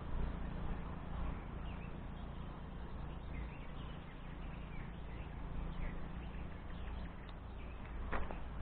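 Wind rumbling on the microphone, with faint bird chirps over it and a sharp click near the end.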